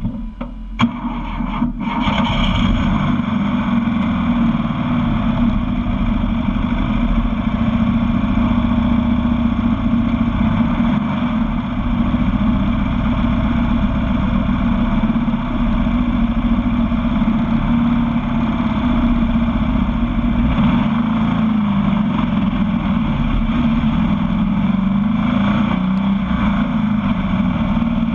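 A sandrail's engine running steadily, heard from a camera mounted on its hood. In the first two seconds the sound dips briefly with a couple of sharp knocks, then the engine holds an even, loud run.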